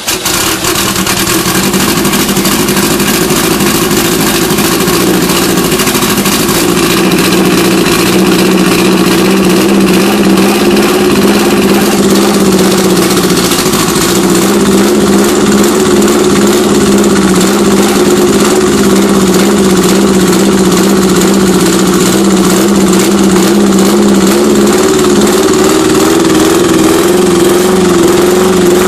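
Air-cooled Volkswagen Beetle flat-four running loud through a baffle-less stinger exhaust just after its first start in over eight years, its engine speed wavering unevenly. It runs only on fuel squirted by hand from a bottle into the bad carburettor.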